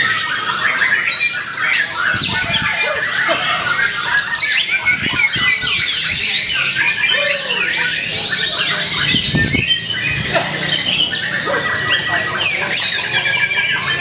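White-rumped shama singing, a rapid stream of varied whistles and chattering notes, overlapping with the calls of many other caged songbirds in a dense, continuous chorus.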